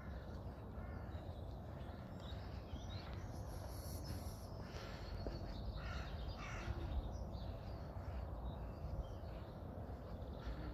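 Corvids cawing a few times around the middle, with other birds calling, over a low steady rumble.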